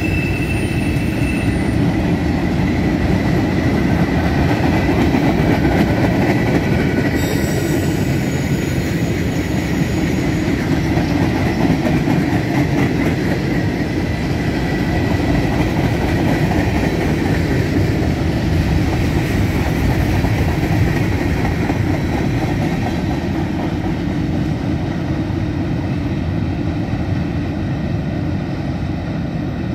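Freight cars rolling past at speed: a steady heavy rumble of wheels on rail with clickety-clack, and brief thin wheel squeals in the first ten seconds. The noise eases slightly toward the end as the train moves away.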